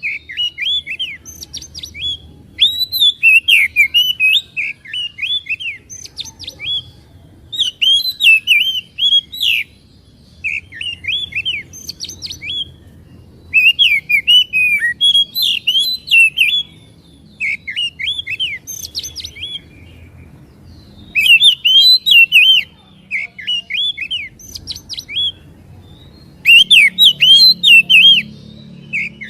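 Oriental magpie-robin singing loudly in repeated phrases of quick swooping whistled notes, each phrase lasting a second or three, with short pauses between.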